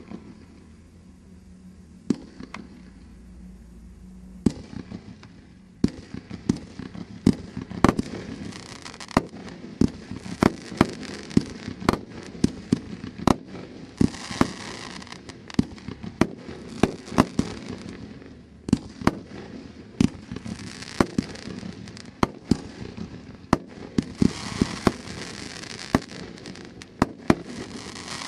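A 28-shot display Roman candle battery (Big N Bold) firing its tubes one after another. Two shots come in the first few seconds, then a steady run of sharp reports, roughly one to two a second, to the end. Stretches of hissing crackle from the stars sound between the shots.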